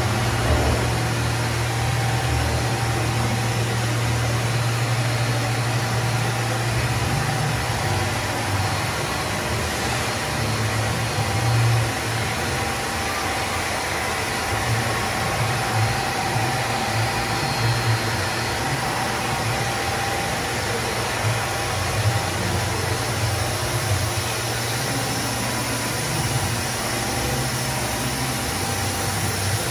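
Steady machinery noise of a running fruit-juice pasteuriser line: pumps and motors humming low under an even hiss. The hum holds steady for the first several seconds, then wavers.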